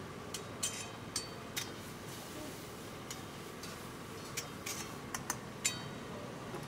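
Metal spatula clinking and scraping against black iron cooking pans: a series of irregular sharp taps with a short metallic ring, a cluster in the first couple of seconds and another cluster past the middle.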